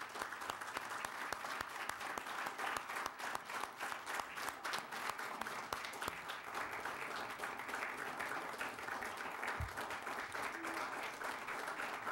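A room of people applauding steadily, a dense mass of hand claps.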